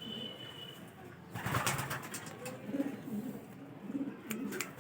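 Racing pigeons cooing, low repeated coos throughout, with a brief noisy rustle about a second and a half in and a few sharp clicks near the end.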